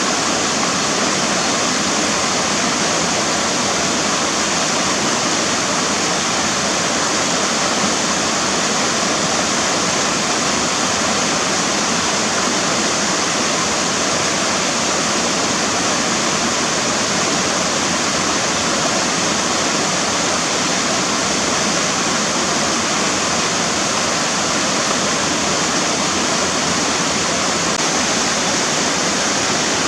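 River water rushing and splashing over rocks: a steady, unbroken hiss of fast-flowing water.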